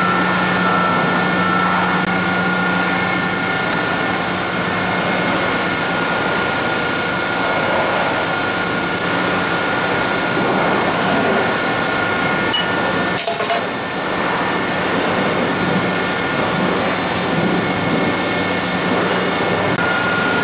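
Steady hum of a Scotchman hydraulic ironworker running, with a constant low drone and a high whine. It drops out briefly with a click about thirteen seconds in.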